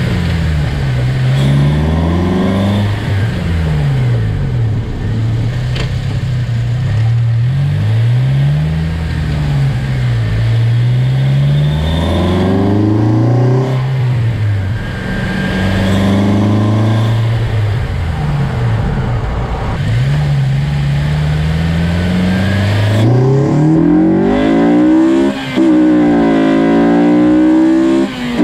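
Honda Civic Si 2.0-litre four-cylinder engine with a short ram intake, heard from inside the engine bay, revved over and over so the pitch climbs and falls every couple of seconds. Near the end it is held at higher revs, with two brief dips.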